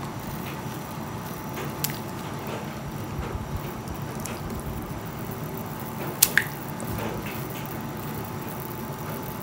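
Spiced asam broth boiling in a wok, a steady bubbling, as pieces of milkfish go into it. A short sharp knock about two seconds in and a louder double knock about six seconds in, as the pieces are put in.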